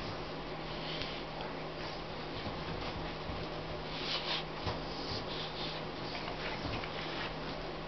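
A dog scratching and rubbing at a fabric pillow on its cushioned bed, making soft scuffing noises in short bursts over a steady low hum.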